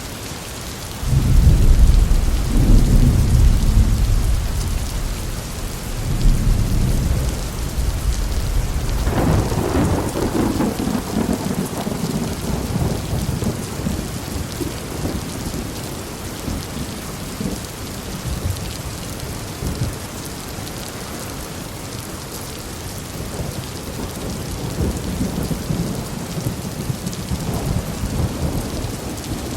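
Heavy thunderstorm: steady rain hiss under rolling thunder. A deep rumble swells about a second in, and a sharper crack of thunder comes around a third of the way through, rolling on and fading into the rain.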